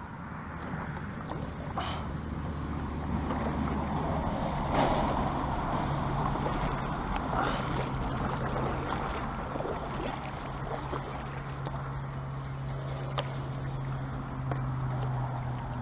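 Kayak paddle strokes: the blades dipping and splashing in calm water, with water gurgling along the plastic hull and a few light knocks of the paddle. A steady low drone runs underneath.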